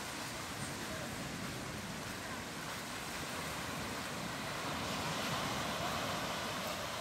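Small waves breaking and washing on a sandy beach: a steady hiss of surf that swells a little about five seconds in.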